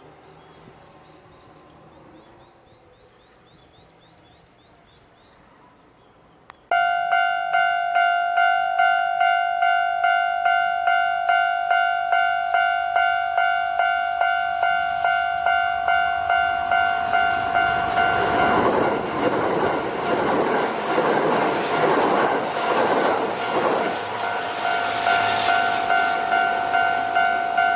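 A Japanese railway level-crossing alarm starts suddenly about seven seconds in and keeps ringing, a bright electronic ding about twice a second. From about the middle, a Kintetsu electric train passes over the crossing for several seconds, its wheels rumbling and clacking on the rails under the bell.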